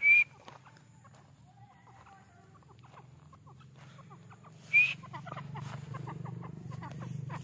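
Grey francolin giving two short, sharp rising call notes about five seconds apart. The second is followed by a run of soft quick clicks.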